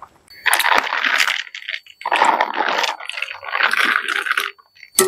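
Wet banana leaf rustling and crinkling as it is handled and rubbed by hand, in three long crackly bursts.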